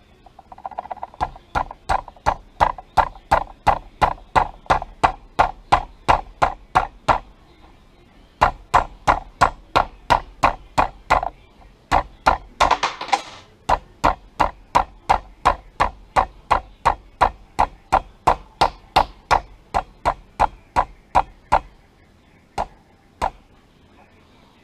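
Steady light hammer taps, about three a second, driving a non-rotating trigger pin with its copper push-through guide into a rifle lower receiver. There is a short pause partway, then the tapping resumes, ending with a single tap near the end.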